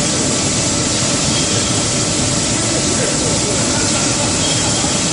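Steady, loud, even din of an automatic powder coating line's machinery running, a continuous rushing noise like large fans or blowers.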